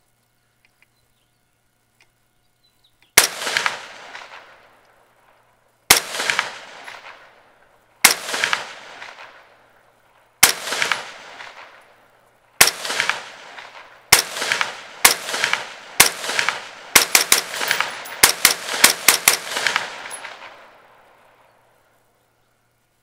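Rifle shots from an AR-style rifle with an 18-inch .223 Wylde barrel: single sharp cracks two to three seconds apart, coming closer together, then a quick string of several shots a few tenths of a second apart near the end. Each crack is followed by an echo that rolls away over a second or two.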